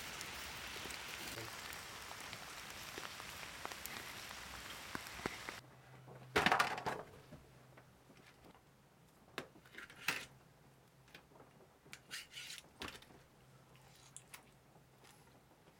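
Steady hiss of rain with small crackles from a campfire grilling skewered meat. It cuts off about five and a half seconds in, and metal skewers clatter and scrape on an aluminium foil tray, loudest about a second later, followed by a few softer clinks and crinkles.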